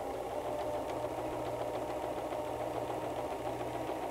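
White 1735 electric sewing machine running steadily while it stitches through denim: an even motor whir with the faint ticking of the needle mechanism.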